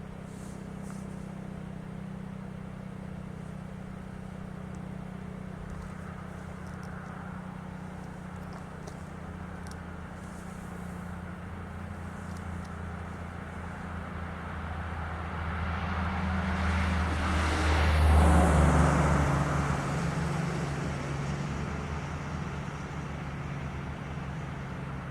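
A road vehicle passes by: its tyre and engine noise grows, peaks about 18 seconds in, then fades away. Under it runs a steady low hum.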